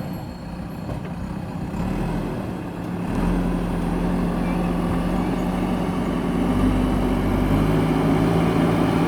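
Diesel engine of a JCB backhoe loader running steadily. It gets louder about three seconds in and again near seven seconds.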